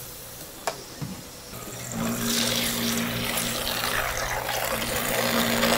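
Water running and splashing, like a tap or rinse nozzle, with a steady machine hum underneath, starting about two seconds in. Before that it is quieter, with a couple of light knocks.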